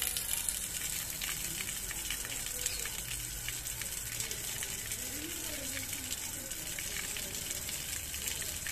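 Water jetting from an open metal tap and splashing onto a stone floor: a steady hissing spray.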